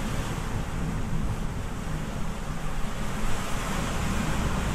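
Steady rush of heavy surf from a storm swell, mixed with wind rumbling on the microphone.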